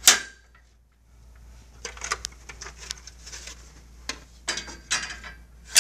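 Plastic anti-condensation caps clicking and knocking against the side rails of an infrared barrier tower as they are snapped into place: one sharp click at the start, then a run of smaller clicks and knocks, and another sharp click at the end.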